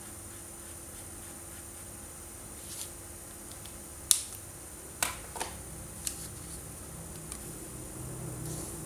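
A few sharp plastic clicks and taps from felt-tip markers being capped and handled, the loudest about four seconds in, over a faint steady hiss.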